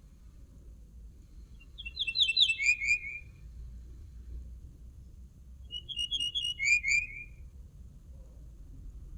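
A songbird the keepers call the bouh sings two short phrases, a few seconds apart. Each phrase is a quick run of repeated trilled notes that steps down in pitch, over a low background hum.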